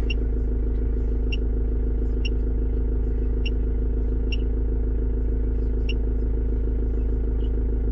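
Ford Transit 2.0 TDDi four-cylinder diesel engine idling steadily. Several short high blips come from the handheld diagnostic scan tool as its arrow key is pressed.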